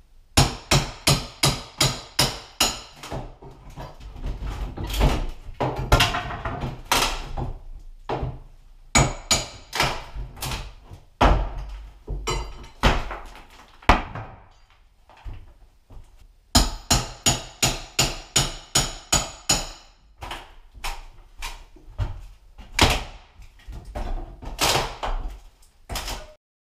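Hammer blows on a steel crowbar being beaten in between a wooden door jamb and the wall, in quick runs of about four blows a second, with duller knocks and thuds of the jamb and trim being pried loose between runs.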